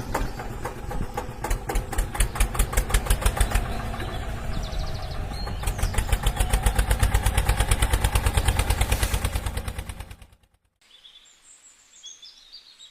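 A small engine chugging in a steady rhythm of about five or six beats a second, cutting off suddenly about ten seconds in; faint bird chirps follow.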